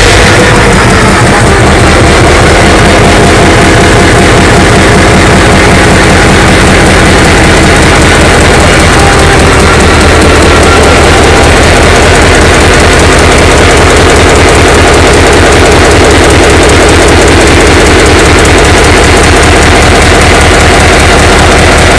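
Large multi-cylinder diesel engine running steadily with its valve covers off, the rocker arms and valve springs working in the open. A loud, even, fast firing beat that holds constant.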